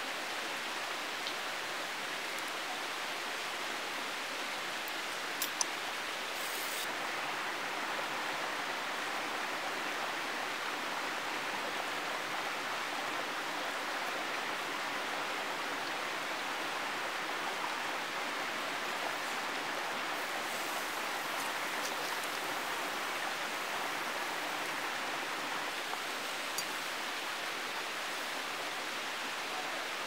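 Mountain stream rushing steadily over rocks, an even, unbroken water noise, with a few faint small clicks now and then.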